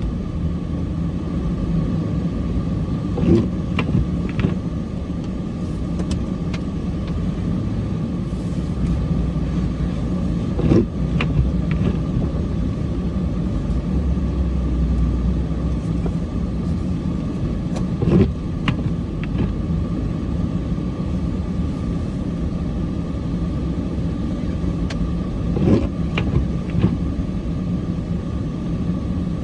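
Cummins diesel pickup truck running steadily under load from inside the cab. A short thump comes about every seven and a half seconds, four in all.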